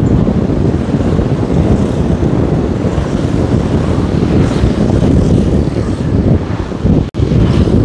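Heavy wind buffeting on the microphone of a moving vehicle, with road and traffic noise underneath; the sound cuts out for an instant about seven seconds in.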